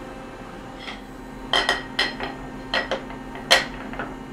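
A series of short metallic clicks and knocks, about eight in three seconds with the loudest about three and a half seconds in: a metal leveling plate carrying two electronic levels being handled and set down on the steel table of a CNC machine. A steady low hum runs underneath.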